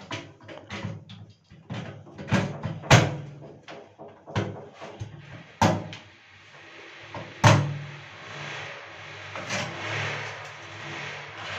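A string of sharp knocks and clatter, the three loudest about 3, 5.5 and 7.5 seconds in, then a steady rushing hiss in the last few seconds.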